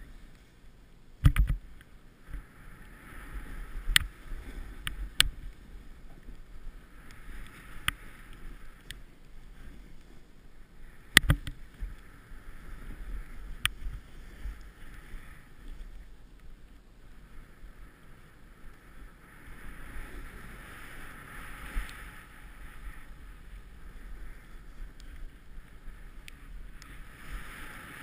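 Snowboard riding through deep powder snow: a soft hiss that swells and fades with the turns, over a low rumble of wind on the microphone. A few sharp knocks cut through, the loudest about eleven seconds in.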